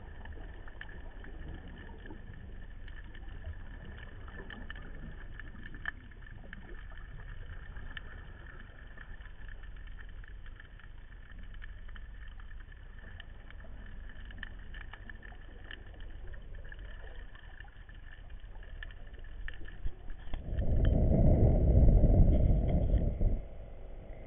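Muffled sound from underwater: a steady low rumble with a faint steady whine and scattered small ticks. Near the end, a loud rush of water lasting about three seconds as the camera comes up through the surface.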